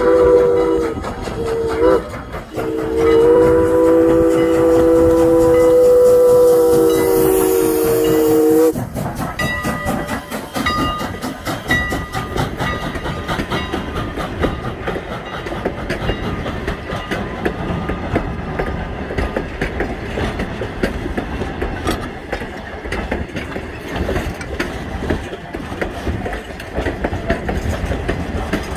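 Canadian National 89's steam whistle sounding a chord of several notes for a grade crossing: one blast ends, a short break follows, then a long blast that cuts off about nine seconds in. After it, the passenger coaches roll past with a steady clickety-clack of wheels over the rail joints.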